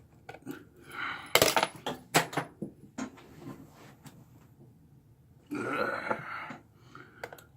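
Screwdriver clicking, knocking and scraping against stubborn screws on a laptop's internal metal panel, with a cluster of sharp metallic clicks early on and a rougher scraping stretch about five and a half seconds in. The screws will not come out: they seem to be resined into the board.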